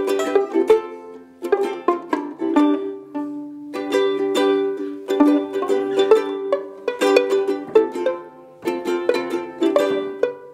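Ukulele strummed in chords, an instrumental passage with no singing, broken by a few brief pauses between phrases.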